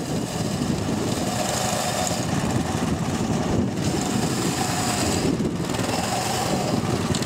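Small petrol engine of an IKUDZO motor-dog snow tug running steadily while the machine sits bogged in deep snow.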